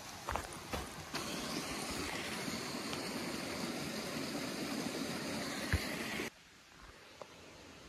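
A few footsteps on the trail, then the steady rush of a stream starting about a second in, cut off abruptly near the end to a faint hiss.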